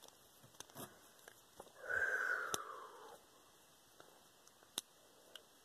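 A few faint clicks as a small screwdriver works a tiny screw in a plastic Beyblade energy layer. About two seconds in comes a breathy sigh lasting about a second.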